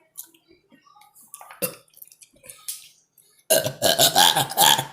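A long, loud burp in a burping contest, starting about three and a half seconds in, after a couple of short, faint sounds.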